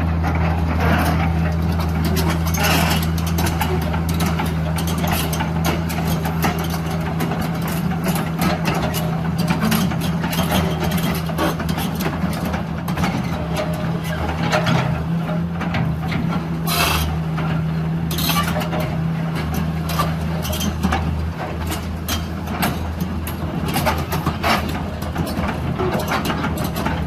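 Link-Belt 2800 Quantum hydraulic excavator's diesel engine running with a steady low hum, with irregular short noises on top.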